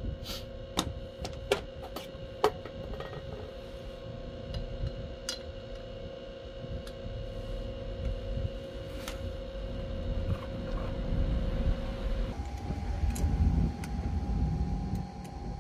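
Metal clicks and taps of hand tools working on a motorcycle flange hub's bolts, most of them in the first few seconds, over a steady low rumble and hum.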